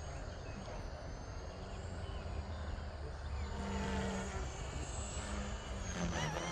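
Distant RC aerobatic plane's motor droning, its pitch wavering as it manoeuvres, over a low rumble of wind on the microphone. A single honk-like call sounds near the end.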